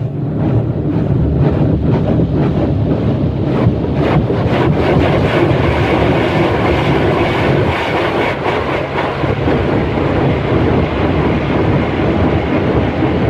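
Jets of water from an automatic car wash spraying and drumming on the car's glass and body, heard from inside the car as a loud, steady rush with a fast, uneven patter.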